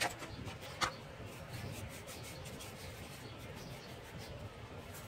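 Two sharp clacks in the first second, then a dry paintbrush's bristles rubbing in quick short strokes.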